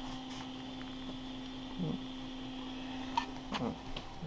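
Steady low electrical hum, with a few short clicks and knocks of the GoPro being handled, most of them in the last second or so.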